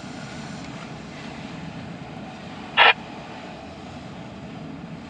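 Double-stack intermodal freight train rolling steadily past, a continuous rumble of wheels on rail heard from inside a car. About three seconds in there is one short, loud burst from the railroad scanner radio.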